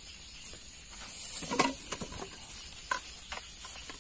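Rustling of a plastic bag and dry grass, with a few sharp clicks, as a freshly speared fish is handled and bagged.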